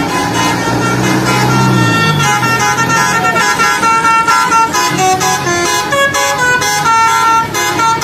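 Telolet basuri musical bus horn playing a tune of stepping notes from about two seconds in. Under it at first a passing vehicle's engine runs low and drops in pitch about two seconds in.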